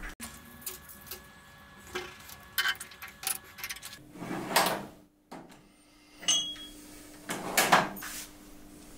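Metal tools and swarf being handled at a lathe: scattered clinks and scrapes, with two louder scraping rustles about four and a half and seven and a half seconds in, as a drill and its stringy chips are cleared from the tailstock chuck. A faint steady hum runs underneath.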